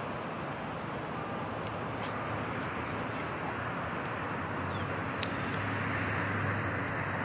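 Steady outdoor ambient noise with a low hum that swells about four and a half seconds in, and a single sharp click just after five seconds.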